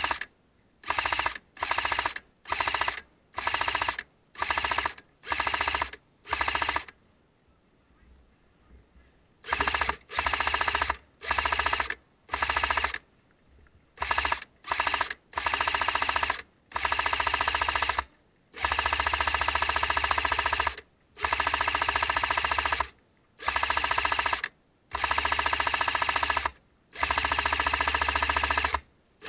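Airsoft electric rifle firing loud full-auto bursts. It starts with a run of about nine short bursts, pauses for a couple of seconds, then fires longer bursts of up to about two seconds each.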